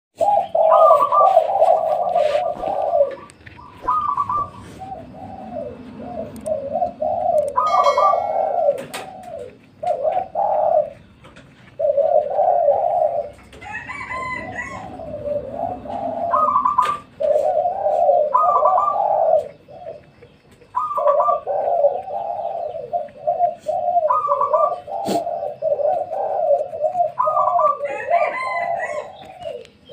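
Several spotted doves cooing, their phrases overlapping almost without pause, with a higher note opening many of the phrases.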